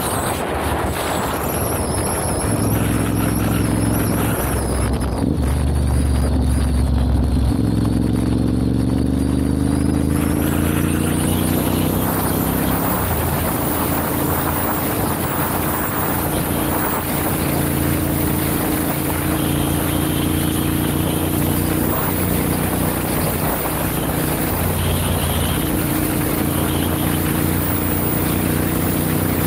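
Ducati Monster 796's air-cooled L-twin engine running under way, with wind rushing over the microphone. The engine note rises in pitch as the bike accelerates from about eight to twelve seconds in, then holds steady at cruising speed.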